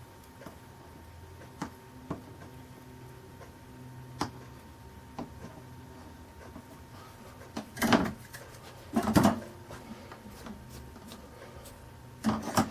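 Light scattered ticks and clicks of soldering work on a stained glass panel, over a faint steady hum. Two louder knocks about eight and nine seconds in and another near the end, like tools being set down on the workbench.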